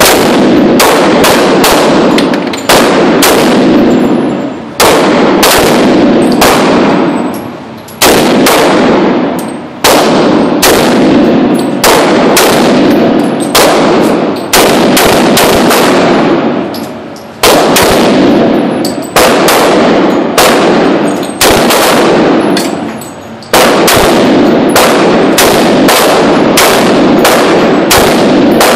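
Firearm shooting repeatedly, very loud: single shots about one to two a second in strings, with brief pauses of a second or two between strings.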